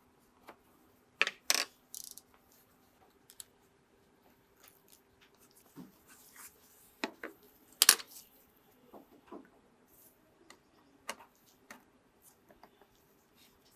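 Small hard parts of a die-cast model car clicking and clinking as they are handled and set down, in scattered sharp taps. The loudest come about a second and a half in and again near eight seconds. A faint steady hum runs underneath.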